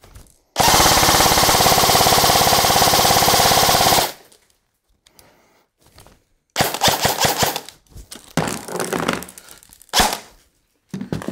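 ICS CXP-UK1 MTR airsoft electric rifle firing fully automatic: one long, loud burst of about three and a half seconds starting about half a second in. After a short pause, several shorter strings of rapid shots follow from about six and a half seconds on, fed from a G&G mid-cap magazine.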